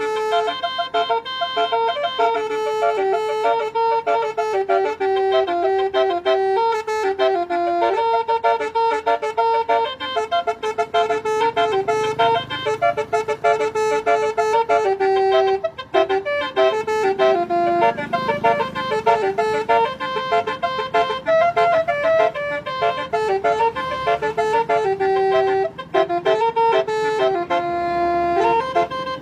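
Basuri telolet horn, a multi-tone electric horn, playing a melody without a break, its notes stepping up and down. A low rumble sits underneath for several seconds in the middle.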